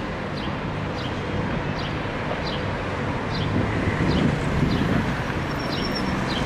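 City street noise: a steady rumble of traffic with wind on the microphone, and a small high chirp repeating evenly about once every two-thirds of a second.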